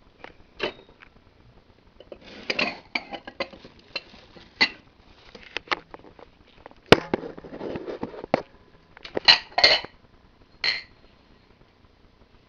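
Ceramic pet bowls clinking and knocking as they are handled and set down: a string of irregular clatters, with the sharpest knock about seven seconds in.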